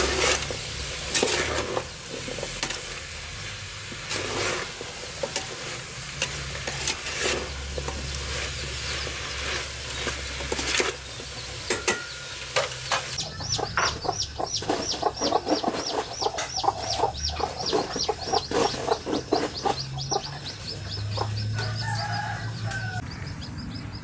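Vegetables stirred and sizzling in a large steel pot, with irregular scraping knocks. About halfway through, a chicken starts clucking in a fast, even series, with repeated high chirps above it, and stops shortly before the end.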